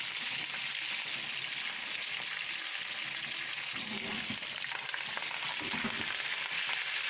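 Hot oil sizzling steadily in a pan: a South Indian tempering of mustard seeds, fenugreek, cumin and pepper, with green chillies and curry leaves just added. A spoon stirs it about four and six seconds in.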